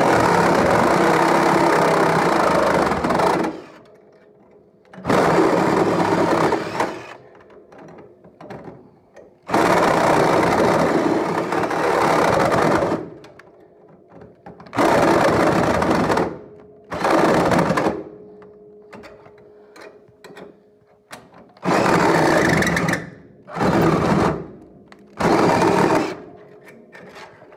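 Handheld power tool cutting through metal in about eight separate bursts, each lasting one to four seconds, with a faint steady hum in the gaps between them.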